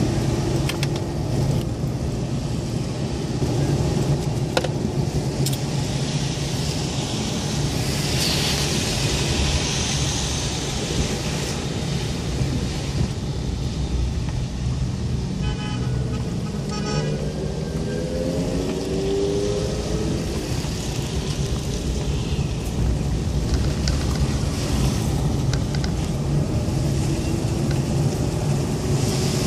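Steady engine hum and tyre noise heard from inside a car driving on a wet road, with a brief rise in hiss about a third of the way in. About halfway through, a vehicle horn sounds in a few short toots.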